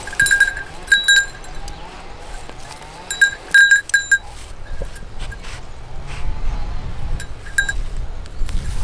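Small bell on a pygmy goat's collar jingling in short bursts as the goat moves about, most at the start and about three to four seconds in, once more near the end. A low rumble builds in the second half.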